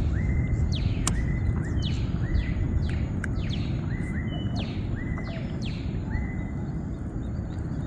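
A bird calling over and over, a short note sliding down in pitch alternating with a flat, level note, over a steady low rumble.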